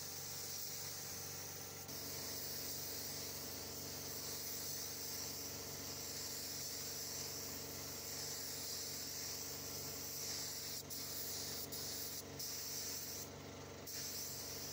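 Gravity-feed air spray gun hissing steadily as it sprays colour paint onto a car body. Near the end the hiss breaks off briefly a few times as the trigger is let off.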